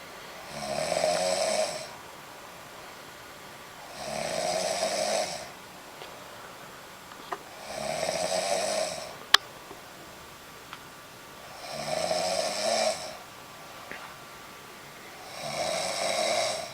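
A woman snoring loudly in her sleep, five long snores in a slow steady rhythm, one about every four seconds. A single sharp click comes just after the third snore.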